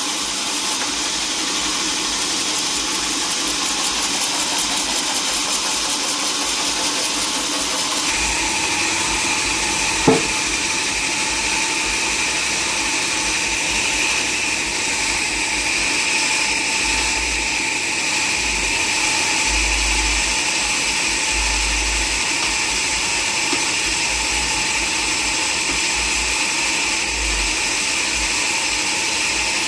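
Sawmill saw running through a log with a steady mechanical noise. Its pitch shifts about eight seconds in, and there is a single sharp knock a couple of seconds later.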